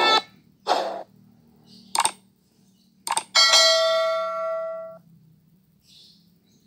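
Subscribe-button animation sound effect: a short swish, a click, a quick double click, then a notification bell chime that rings for about a second and a half and fades. The chime is the loudest part. Music cuts off at the very start.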